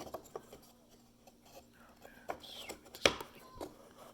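Wooden puzzle box pieces being handled and slid back into place: scattered light clicks and taps of wood, with one sharp knock about three seconds in.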